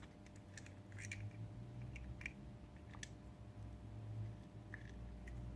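Faint, scattered clicks and taps of small plastic robot-kit parts being handled and fitted together, over a low steady hum.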